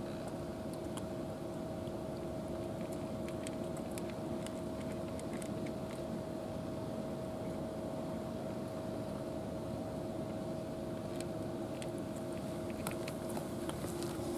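Steady mechanical drone of a running engine or motor holding two even tones, with scattered faint clicks and ticks over it, more of them near the end.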